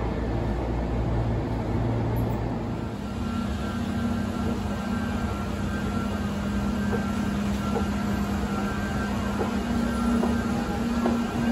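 Railway station ambience: a steady mechanical hum over general noise, with a low drone and a faint higher whine that set in about three seconds in.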